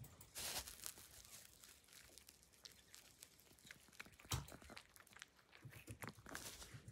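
Faint close-up mouth sounds of a cat licking and nosing at a carpet: scattered soft clicks and rustles, the sharpest click about four and a half seconds in.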